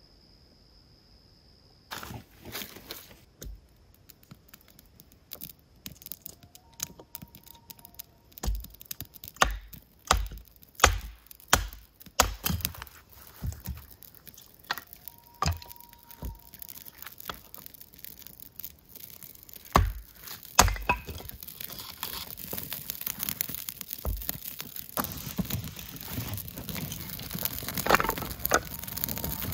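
Crickets chirping steadily, then dry twigs and kindling snapped by hand for a campfire: a long run of sharp cracks and snaps. From about twenty seconds in, the kindling catches and crackles, growing denser toward the end.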